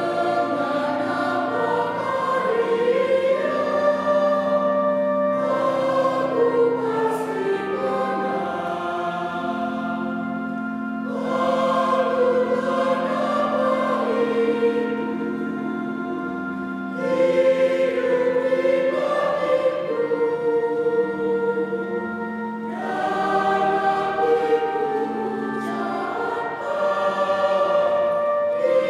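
Mixed church choir of men and women singing a hymn in two-part harmony, in phrases that swell and ease off every few seconds.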